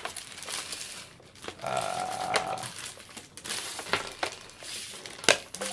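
Plastic wrap rustling as it is slid down a headphone cable, with sharp knocks of the cable against the box; the loudest knock comes near the end. For about a second near the middle, a phone's message alert buzzes.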